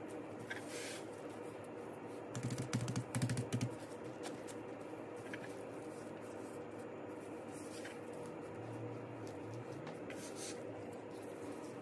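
Plastic-gloved hands handling nori-wrapped Spam rice sandwiches on a wooden cutting board: scattered light clicks and crinkles. A short cluster of louder knocks comes about two and a half seconds in. A steady low hum runs underneath.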